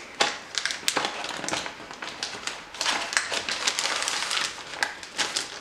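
Plastic MRE packaging crinkling and rustling in irregular crackles as a food pouch is folded and pushed into a flameless ration heater bag, with a busier stretch of rustling about halfway through.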